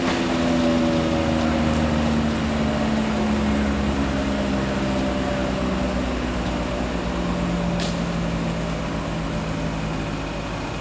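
An engine running steadily, its pitch slowly falling.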